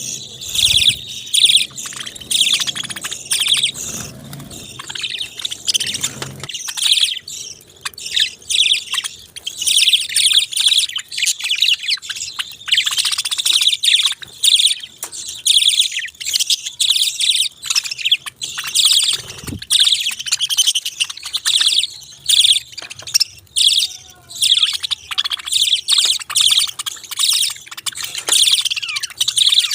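Budgerigars chirping and warbling in a constant chatter of rapid high chirps.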